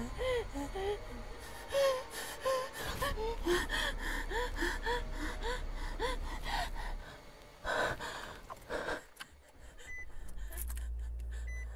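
A woman gasping and whimpering in quick, short, frightened breaths for about seven seconds. Then it goes quieter, with a couple of heavier breaths, over a low rumble.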